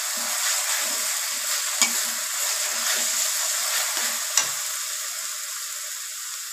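Onion-and-spice masala sizzling in oil in a metal kadai while a steel spatula stirs and scrapes through it in quick strokes. The spatula knocks sharply on the pan twice, about two and four and a half seconds in. The sizzle eases slightly near the end.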